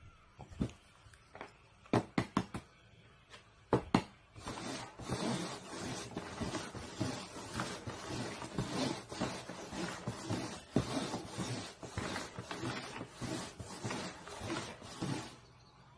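Red paper cups being shuffled on a cardboard game board: a few sharp taps as cups are set down, loudest near two and four seconds in, then a long run of rapid scraping and tapping as they slide around, stopping about a second before the end.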